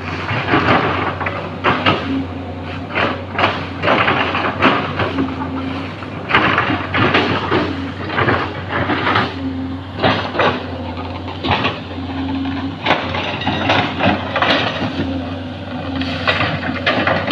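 Diesel engine of a hydraulic excavator running steadily under an irregular series of sharp knocks and crunches as it chips felled oil palm trunks.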